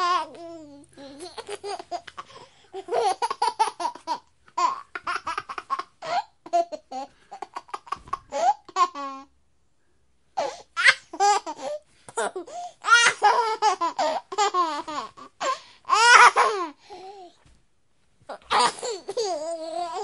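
A baby laughing: strings of short, high-pitched laughs in bursts, breaking off briefly about nine seconds in and again near the end.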